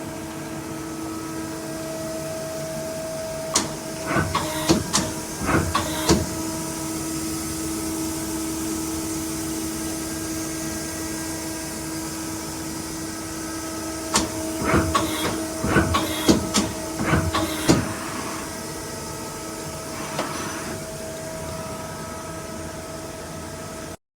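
Mazak Quick Turn Nexus 200-II CNC lathe running with a steady hum. Two runs of sharp mechanical clanks and clicks come through it, about four seconds in and again about fourteen seconds in.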